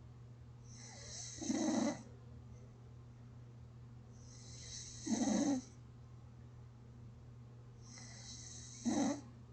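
Person snoring in sleep: three short snores, each about half a second, coming every three and a half to four seconds, over a steady low hum.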